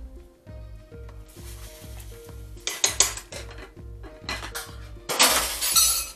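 Cookware clatter: a few sharp clinks about three seconds in, then a longer, louder rattling clatter near the end as the glass lid of a pot is handled, over background music with a steady beat.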